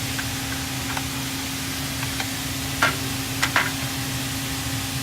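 A pressure bar being handled and set into its 3D-printed cutting template against the saw. About half a dozen light knocks and clicks, the loudest about three and three and a half seconds in, over a steady shop hum.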